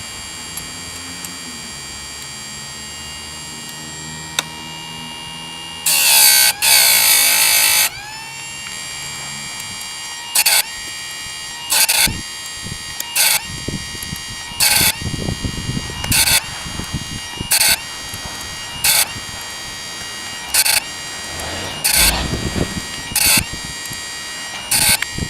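Harbor Freight electric chainsaw sharpener's grinding-wheel motor running with a steady whine. About six seconds in comes a loud two-second grinding pass. From about ten seconds on there are short grinding bursts roughly every second and a half as the wheel is brought down on the chain's teeth one after another, sharpening the saw chain.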